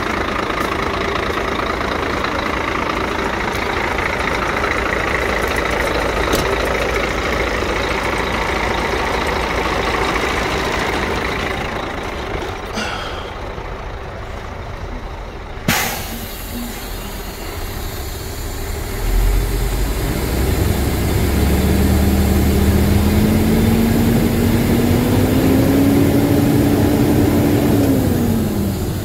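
Scania 114 380's 11-litre straight-six diesel idling, heard first from outside the truck and then from inside the cab. About halfway through there is one sharp knock, and in the last third a low hum with a tone that rises slightly and drops back near the end.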